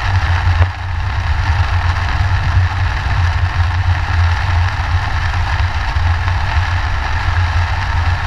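A car driving in heavy rain, heard from inside the cabin: a steady low rumble of engine and road noise under an even hiss of rain and tyre spray. A single brief click comes about half a second in.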